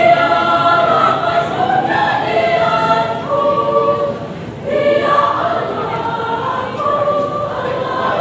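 Women's choir singing in parts, holding sustained chords that change every second or so, with a short break for breath about four and a half seconds in.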